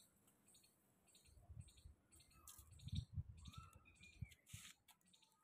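Near silence: a faint background with scattered soft clicks and a few low thumps.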